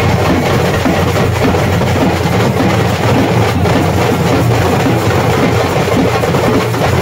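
Loud, steady music with drums and percussion.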